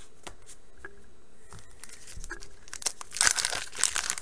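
Wax-paper wrapper of a 1989 Bowman baseball card pack being torn open and crinkled, the crackling starting about three seconds in after a few faint clicks.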